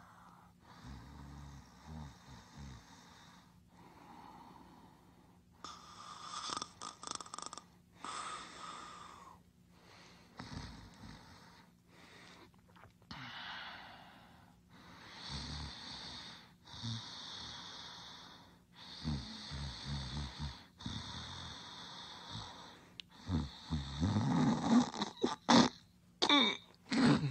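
Snoring: a series of rasping snores, breaths in and out with short pauses between them, louder near the end.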